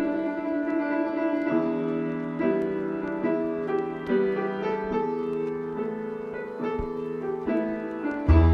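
Background music led by piano, with low bass notes coming in near the end.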